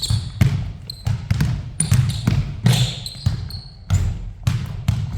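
A basketball being dribbled hard on a court in a ball-handling drill, about two bounces a second, with short high squeaks between the bounces.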